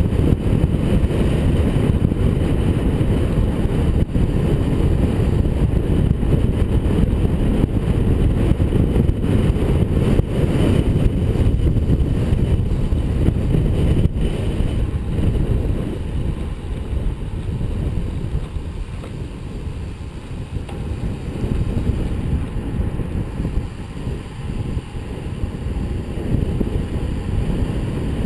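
Wind buffeting the microphone of a bicycle-mounted camera on a fast road-bike descent: a loud, steady, low rush that eases somewhat about halfway through.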